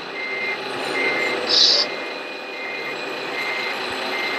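Electronic reversing beeper from an RC construction model's sound module, giving short high beeps at one steady pitch a little more than once a second. A brief hiss about one and a half seconds in is the loudest sound.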